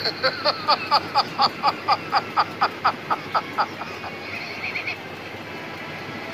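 A man laughing heartily, a long rhythmic string of "ha" bursts at about four a second that trails off after three and a half seconds.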